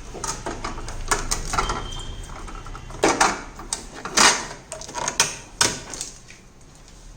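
Irregular plastic clicks, knocks and short scrapes of refrigerator freezer fittings being handled, the movable ice tray and ice box, loudest about three and four seconds in.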